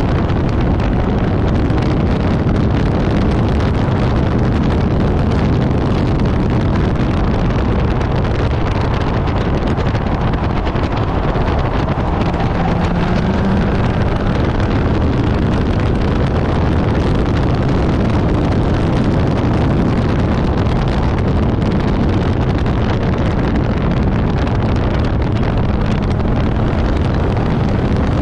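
Infiniti G37S's 3.7-litre V6 driven hard at speed, steady and loud, under heavy wind noise on the microphone.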